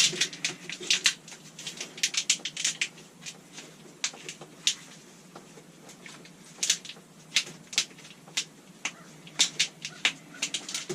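Irregular sharp clicks and light taps from hand work on parts, some in quick little clusters, over a faint steady hum.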